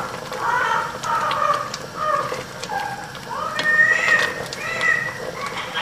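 Indistinct, faraway voices, with light clicks and scrapes of a wooden spoon stirring soup in a stainless steel pot.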